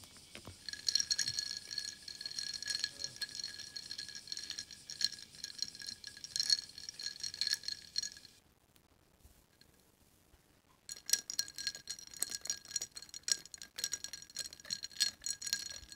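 Ice cubes clinking and rattling against a drinking glass as an iced drink is stirred round and round. There are two long stretches of quick, ringing clinks with a pause of about two seconds near the middle.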